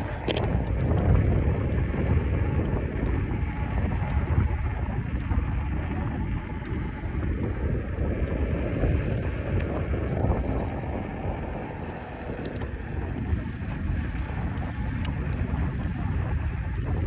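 Wind buffeting the microphone of a camera on a moving bicycle: a steady, fluctuating low rumble, with a few faint ticks.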